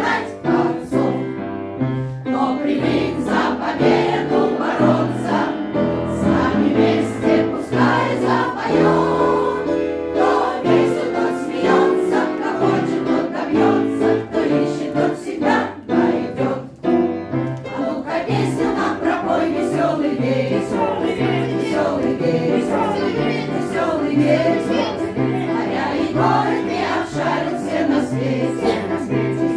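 A veterans' choir singing in unison-style chorus with instrumental accompaniment, over a regular stepping bass line.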